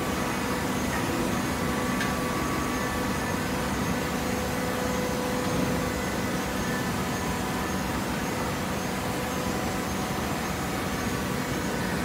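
Steady mechanical hum of a horizontal hydraulic baling press running, a few faint steady tones over an even hiss.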